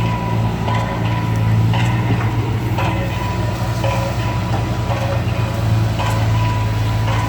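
Heavy tracked machine's diesel engine running steadily, with a squeak and clank from the tracks recurring about once a second.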